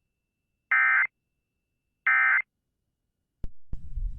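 Two short bursts of Emergency Alert System end-of-message (EOM) data tones, a harsh digital warble, with about a second of silence between them. Near the end, a click and then low noise.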